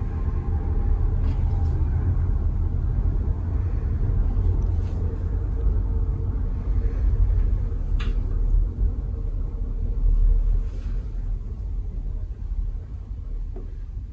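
Steady low rumbling and rubbing noise as gloved hands press and rock a patient's upper back on a treatment table. One sharp click comes about eight seconds in.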